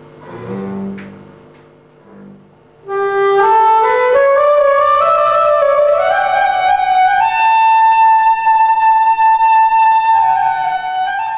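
Music: a solo woodwind instrument comes in loudly about three seconds in and climbs slowly, note by note, to a long held high note, dropping a little just before the end.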